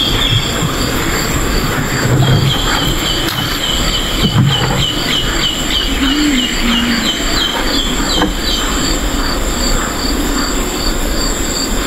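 Insects shrilling steadily at a high pitch, with a fast pulsing trill in the middle and evenly repeated chirps above it. A low two-note call sounds around six seconds in, and there are a couple of dull knocks.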